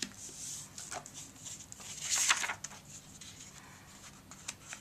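A sheet of paper folded and creased by hand on a table, a corner brought down to the centre crease: soft rustles and sliding paper, the loudest a swish about two seconds in, with a few short brushes near the end.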